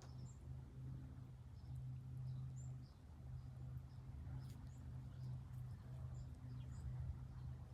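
Faint, scattered short bird chirps over a low steady hum.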